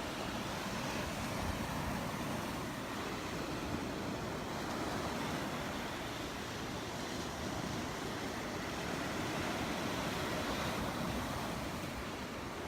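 Surf washing onto the beach, a steady rush of waves, with wind buffeting the microphone.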